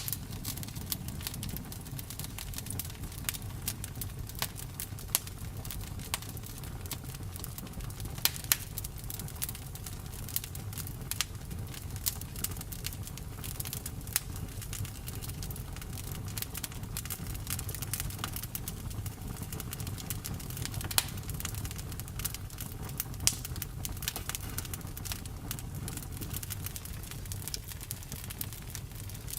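Campfire burning: a low, steady rumble of the flames under scattered sharp crackles and pops of the burning wood, a few of them louder.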